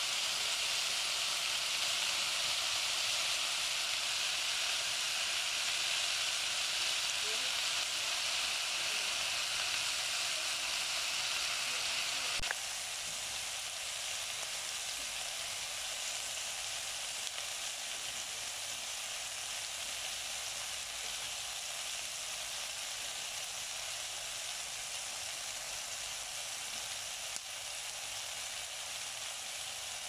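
Chunks of meat sizzling in hot oil in a non-stick frying pan, a steady frying hiss. About halfway through there is a click and the sizzle drops a little quieter.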